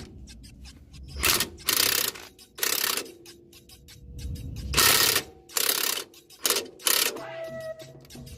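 A ball joint press being driven in short, irregular rasping bursts, about eight of them, forcing a new lower ball joint into the control arm after hammering would not seat it.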